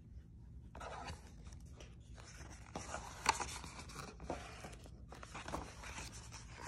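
Paper pages of a picture book being turned and handled: rustling and scraping in stretches, with one sharper snap about three seconds in.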